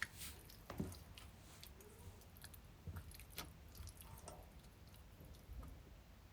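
Faint wet squishing and scattered soft clicks of hands working sauce into raw salmon pieces.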